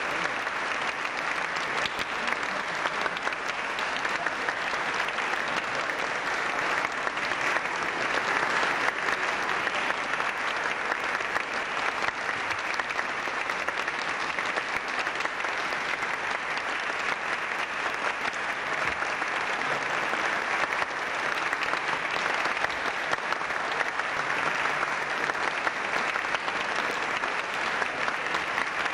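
Many people applauding, a long, steady round of clapping that neither swells nor dies away.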